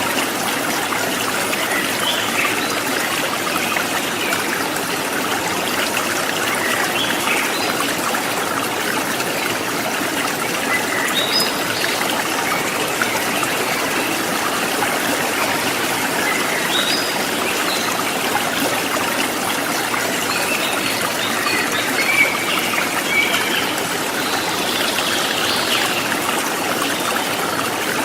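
River water flowing steadily over a rocky bed, a dense continuous rush and trickle.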